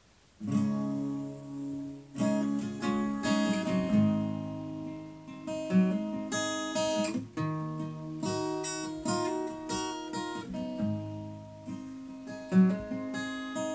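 Acoustic guitar with a capo playing a song's instrumental intro, strummed chords ringing out and changing every second or so, starting about half a second in.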